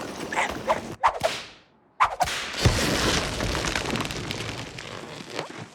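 Cartoon slapstick sound effects: a few quick whip-like snaps and a whoosh, a brief silence about two seconds in, then a sudden hit with a low thud and a rushing noise that slowly dies away.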